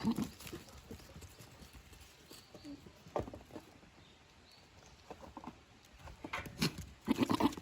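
Goats scuffling at a wire fence: scattered knocks and hoof clatter, then a quick run of louder knocks near the end.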